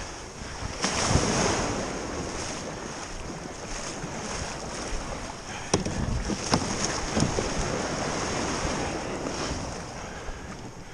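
Small surf washing and breaking around a kayak going out through the shore break, with wind on the microphone. A few sharp knocks come about six to seven seconds in.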